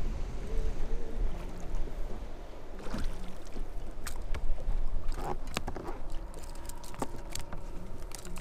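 Wind on the microphone and water against a bass boat's hull make a steady low rumble. From about three seconds in there is a run of sharp clicks and knocks as a small bass is swung aboard and handled on the deck.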